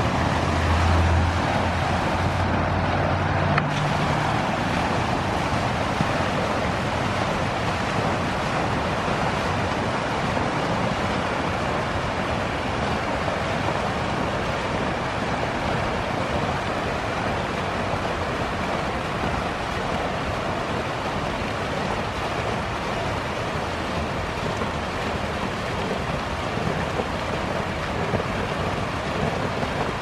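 Water from a fountain's waterfalls pouring over brick walls into a pool: a steady splashing rush. A low hum sits under it for the first few seconds.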